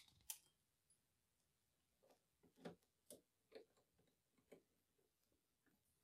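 Near silence with a handful of faint, irregular clicks from a hand tool's bit working a screw in the engine-bay cowl panel.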